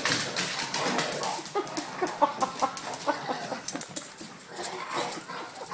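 Dogs play-fighting, making a run of short, quick yips and grumbles, thickest in the first half.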